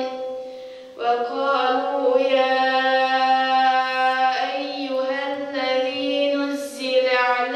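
Choir singing an ilahija, a Bosnian Islamic devotional hymn, in long held notes, with a fresh phrase starting about a second in and another about four and a half seconds in.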